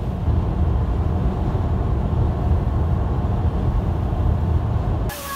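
Steady low rumble of a car cruising at highway speed, heard from inside the cabin: road and engine noise. It stops abruptly near the end.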